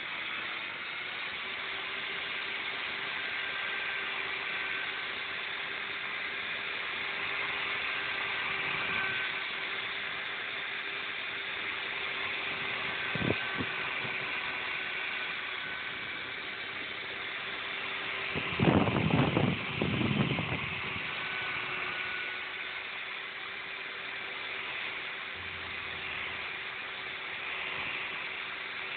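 Electric drill running steadily, spinning a cable inside a motorcycle's metal air feeder pipe to scour out the deposits, with a steady motor hum. A knock comes partway through, and a louder rattling clatter follows later as the pipe and cable knock about.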